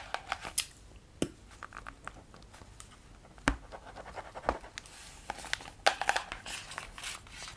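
Small paper notebook handled up close: pages flipped and rustling, with scattered sharp taps and scratches against it.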